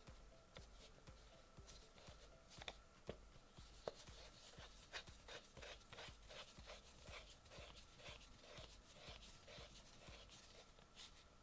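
Faint handling clicks and ticks of plastic parts of a desktop microphone stand being twisted and fitted together, with a quick run of small clicks in the middle.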